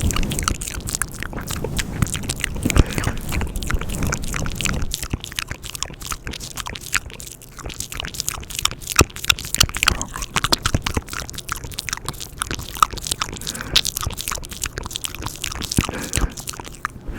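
Close-miked ASMR mouth sounds: a steady run of wet tongue and lip clicks and smacks, many short sharp pops each second.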